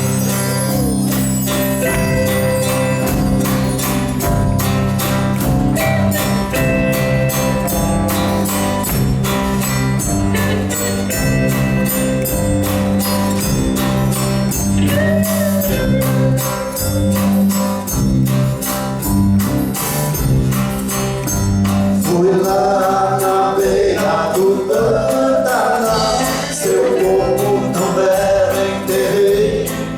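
Band playing an instrumental intro: strummed acoustic guitar and bass over a steady beat with jingling tambourine-like percussion. About two-thirds of the way through, a higher melody line enters on top.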